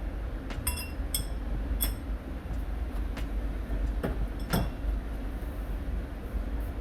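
Metal hand tools clinking on engine parts: three short ringing metallic clinks in the first two seconds, then two duller knocks about four and a half seconds in, over a steady low rumble.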